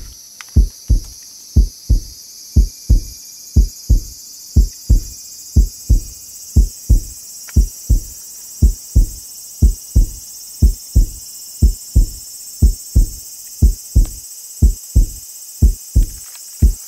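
Heartbeat sound effect: a steady lub-dub of paired low thumps, about one beat a second, over a faint high hiss.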